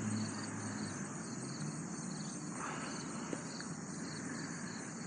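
Crickets chirping in a steady, evenly pulsing chorus over faint background noise.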